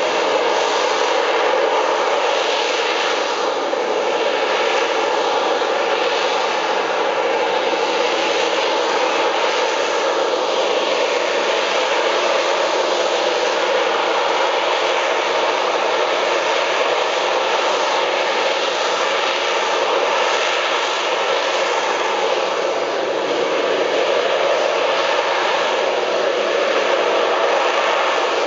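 Jet noise from an AV-8B Harrier II hovering: its Pegasus turbofan held at hover thrust, a loud steady rush whose tone shifts slowly as the jet holds position.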